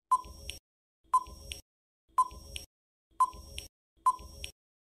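Quiz countdown-timer sound effect: five short electronic beeps, about one a second, counting down from five to one.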